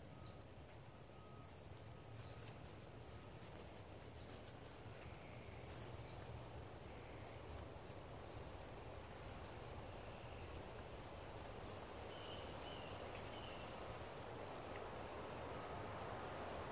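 Faint woodland ambience with scattered short bird chirps and a few soft clicks and rustles.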